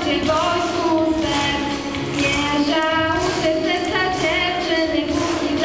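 A small group of teenage girls singing a song together into handheld microphones, with long held notes that slide from one pitch to the next.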